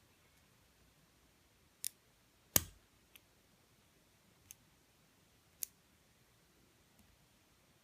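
Lock pick working the pin stack of an Abus 34/55 padlock under heavy tension: about half a dozen sharp, separate metallic clicks as pins are lifted and set, the loudest about two and a half seconds in.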